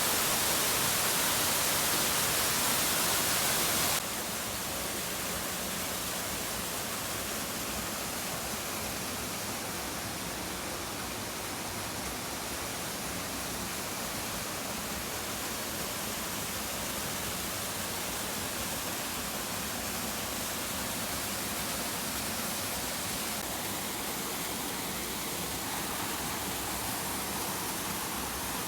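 Steady rush of falling water from a small waterfall, louder and brighter for the first four seconds, then dropping suddenly to a softer steady rush.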